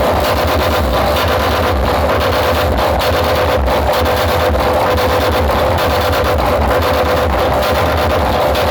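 Music blasted through large sound-system rigs at full power, heavily distorted and overloaded, with a continuous pounding bass.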